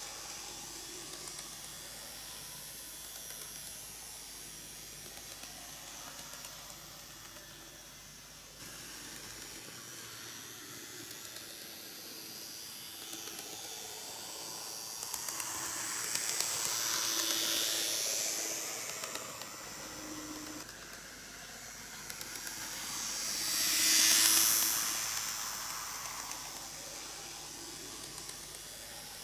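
An N-gauge model electric locomotive, a KATO EF81 300, running on TOMIX canted track. Its small motor and its wheels on the rails give a steady high hiss with a faint whine. The sound swells twice as the locomotive comes round toward the microphone: moderately about halfway through, and louder about three-quarters of the way in.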